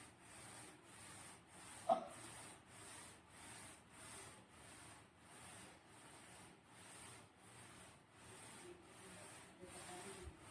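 Slime being worked by hand: faint, even rubbing strokes, about three every two seconds, with a single soft click about two seconds in.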